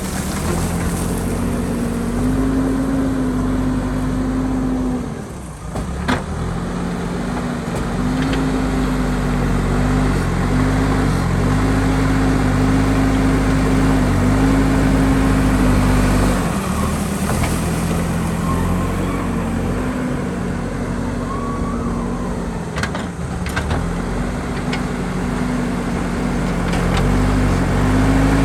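JCB backhoe loader's diesel engine working under load, its pitch sagging and picking up again several times as the machine digs, with a few short knocks.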